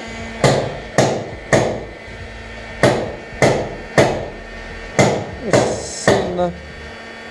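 Nine sharp knocks, like hammer blows, in three groups of three with about half a second between blows, over the steady low hum of an electric heat gun running.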